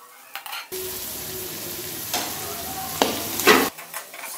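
Metal spatula scraping and stirring chicken and vegetables stir-frying in an aluminium kadai, with light sizzling. Through the middle comes a steadier sizzle with a few louder scrapes, and near the end quick stirring strokes return.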